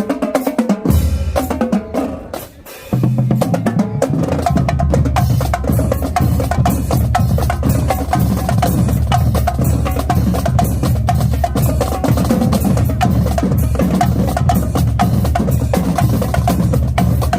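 Marching drumline playing: rapid snare drum strokes over low, pitched bass drums. The drums break off briefly about two and a half seconds in, then come back in full and keep a dense, steady pattern.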